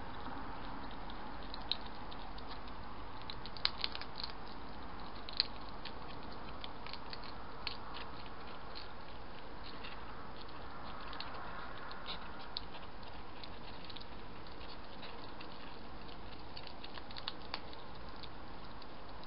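Hedgehogs eating, irregular small clicks and crunches of chewing food over a steady hiss, with a few sharper clicks in the first third.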